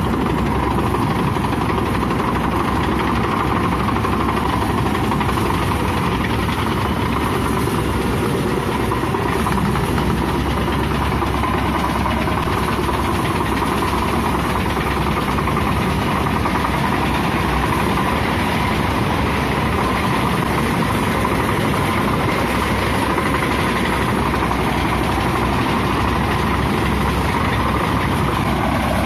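Tracked tractor's diesel engine running steadily, with a constant drone.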